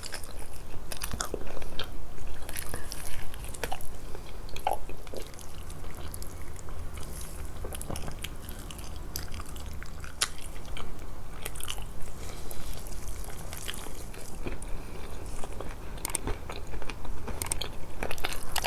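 Close-miked eating sounds: biting and chewing stuffed grape leaves and lamb tongue, with many short, irregular mouth clicks over a steady low hum.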